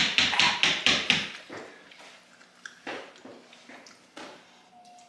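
Hands slapping rapidly and evenly on a tabletop, about five slaps a second, as a person reacts to the burn of an extremely hot chili gummy bear. The slapping stops a little over a second in, followed by a few isolated soft knocks and a faint, thin whimper near the end.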